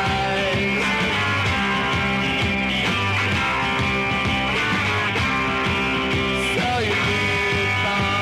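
A recorded rock song in a psychedelic punk style, the full band playing at a steady, dense level with some sliding pitches in the upper parts.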